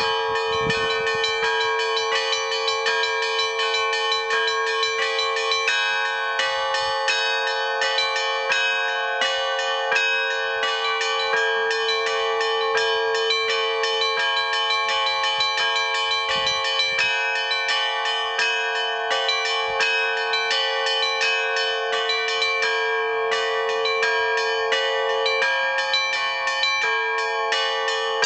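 Russian Orthodox trezvon: a set of church bells rung in a fast, continuous, rhythmic peal. Small bells chime in quick strikes over a lower bell that rings on steadily beneath them.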